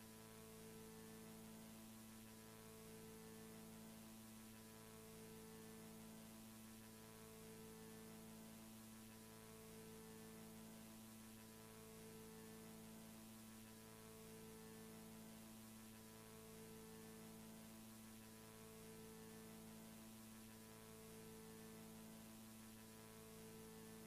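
Near silence: a faint steady electrical hum with buzzy overtones over light hiss, swelling slightly about every two seconds.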